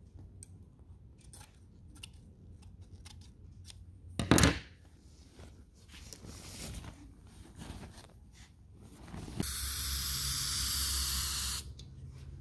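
Scissors snipping through fabric in a series of small cuts, with one louder sharp sound about four seconds in; then an aerosol spray can hisses steadily for about two seconds near the end.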